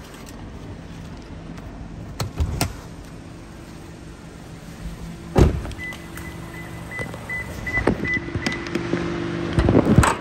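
A 2022 Toyota RAV4's 2.5-litre four-cylinder idling with a steady hum while a car door shuts with a thump about halfway through. Right after, the car sounds a run of short, high beeps for about three seconds, and a few knocks and clicks come near the end.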